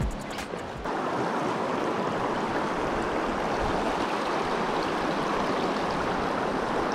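Shallow river running over a stony bed: a steady rush of water that starts abruptly about a second in.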